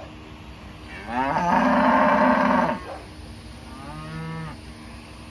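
Cattle mooing: one long, loud moo, then a shorter, quieter one about a second later.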